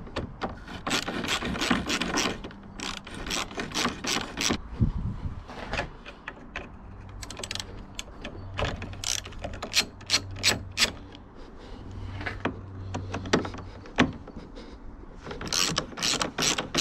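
Hand socket ratchet clicking in quick runs, with short pauses, as it backs out the Torx screws that hold the bumper.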